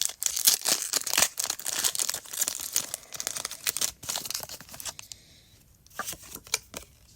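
Foil Pokémon booster pack being torn open and crinkled in the hands: a dense, crackling rip for about four seconds, then a few lighter crinkles near the end.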